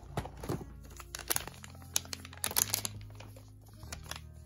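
Shiny plastic wrapper of a toy surprise packet being handled and opened, a run of sharp crinkles, loudest a little past halfway through.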